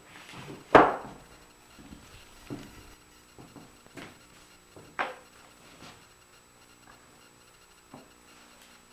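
Irregular knocks and clicks of small hard parts being handled while drawer knobs are fitted with a homemade knob wrench. The loudest knock comes about a second in and a fairly strong one about five seconds in; smaller clicks are scattered between.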